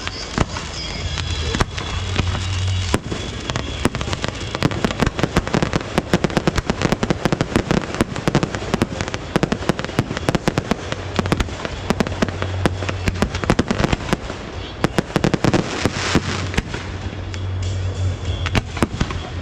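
Fireworks display: a dense, unbroken run of sharp bangs and crackles from bursting shells, many per second.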